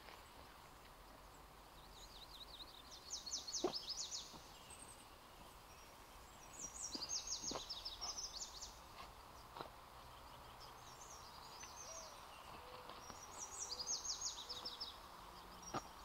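A small songbird singing three bursts of rapid, high trilled notes, with a few faint knocks and scrapes from a dog digging in forest soil.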